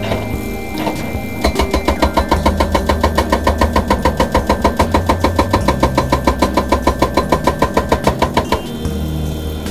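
Excavator-mounted hydraulic rock breaker hammering a boulder: a rapid, even rattle of about seven blows a second that starts about a second and a half in and stops near the end. The excavator's engine runs steadily underneath.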